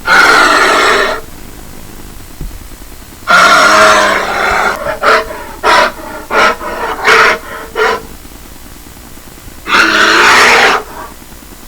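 A bear roaring: one long roar at the start, another about three seconds in that breaks into a quick run of short roaring grunts, and a third long roar near the end.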